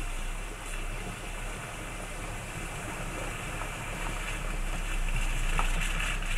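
Land Rover Freelander driving out of a shallow ford toward the camera: a steady low engine rumble with some water noise that grows gradually louder as it approaches, heard from inside another car.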